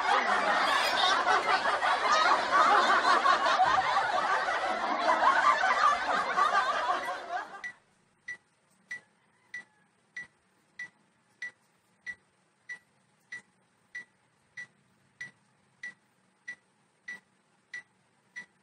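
A loud, dense noise that cuts off abruptly about eight seconds in, followed by short, evenly spaced high beeps, about three every two seconds: the pacing tick of a workout timer.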